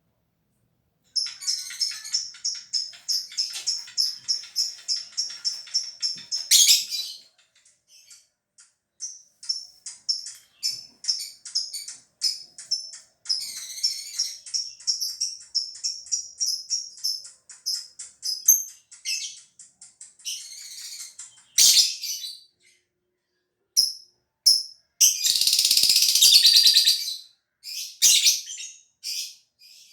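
Lovebird giving its 'ngekek' song: long runs of shrill chirps repeated about five a second, broken by short pauses. Near the end comes one loud, dense burst.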